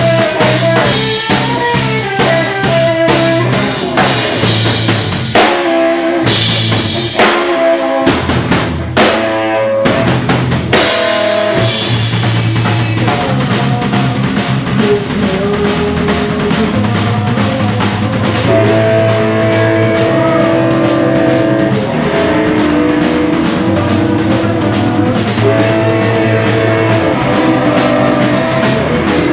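A live rock band playing loud: a drum kit and electric guitar, with a few abrupt stop-start breaks in the first half, then a steady driving groove with held notes.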